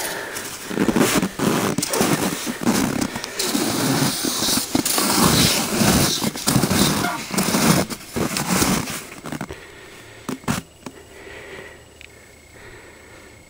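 Cross-country skis sliding and scraping over wind-crusted snow in a steady stride rhythm, a swish every half second or so, then stopping about nine or ten seconds in.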